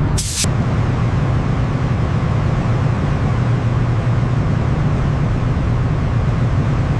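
Steady, loud machine running noise: a low hum under a broad hiss. A brief break with a sharp burst comes just after the start.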